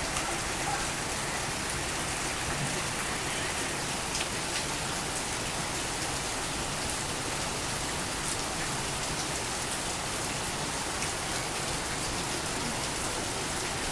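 Torrential rain falling steadily as a dense, even hiss, with scattered sharper drop impacts.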